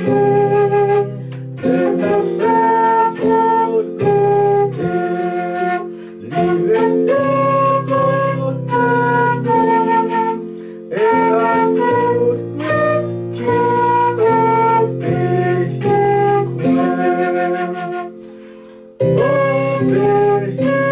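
Silver concert flute playing a hymn melody in phrases over an accompaniment of held chords.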